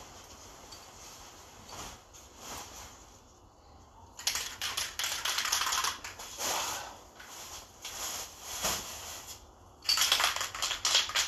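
Aerosol spray-paint can being shaken, the mixing ball rattling fast inside to mix the paint. It comes in two spells, about four to six seconds in and again from about ten seconds in, with lighter rattles between.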